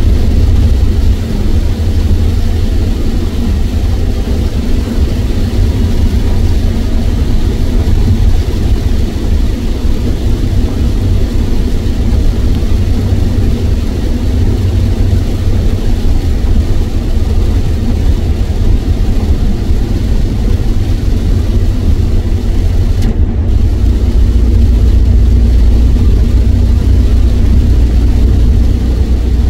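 A car driving at highway speed in heavy rain, heard from inside the cabin: a steady, loud low rumble of road and engine noise under an even hiss of rain and tyre spray.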